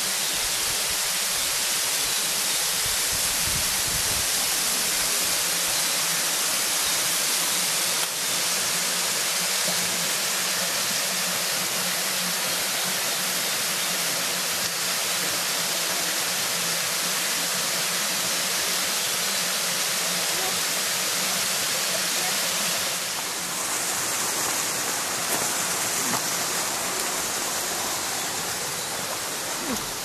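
Waterfall pouring steadily, a constant rush of falling water that grows a little quieter about two-thirds of the way through, with a few light ticks near the end.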